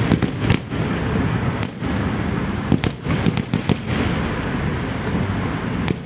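Fireworks display going off: a continuous low rumble of bursting shells with many sharp bangs and crackles over it.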